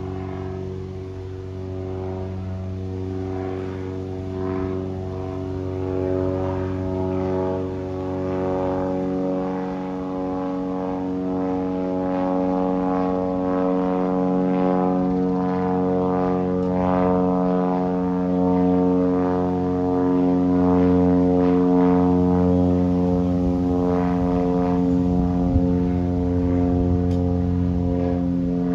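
Cessna R172E Skyhawk banner-towing plane's piston engine and propeller droning steadily overhead, slowly growing louder as it approaches.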